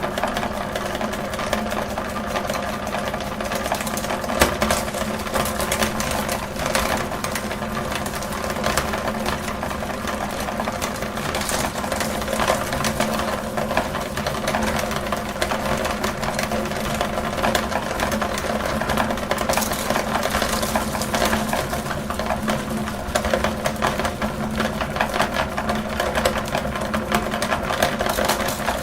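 Electric meat grinder running steadily, its motor giving a constant hum with a fast, even rattle.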